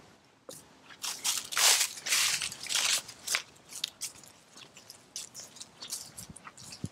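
Footsteps crunching through dry fallen leaves on a lawn: a run of loud crunches in the first half, then softer, scattered ones.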